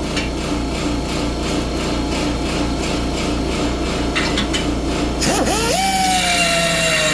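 Air-powered grinder with a carbide burr cutting into the steel of an ATV exhaust outlet, a steady rasping grind. About five seconds in, the pitch climbs into a steady high whine.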